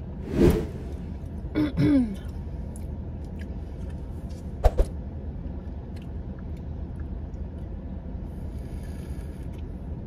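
A woman clears her throat about half a second in, then makes a short hum that falls in pitch, over a steady low car-interior hum. A couple of light clicks follow a few seconds later.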